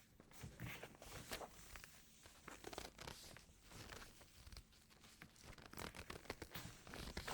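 Cloud slime being stretched and squeezed by hand, giving faint, irregular crackling and tearing sounds.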